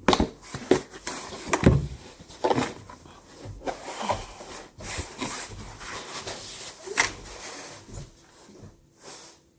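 Handling noise: irregular knocks, clicks and rustles as gear and tools are picked up and moved about, a few sharper knocks standing out.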